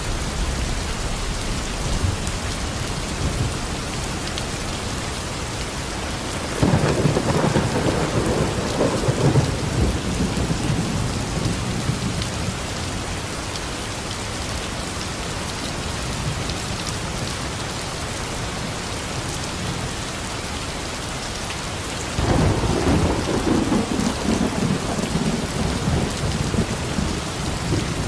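Steady rain falling, with two rolls of thunder: one about a quarter of the way in that fades over several seconds, and another starting sharply near the end.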